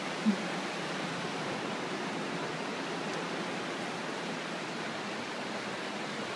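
Steady rushing of a whitewater mountain river, an even roar of water over rocks. A brief low blip sounds about a third of a second in.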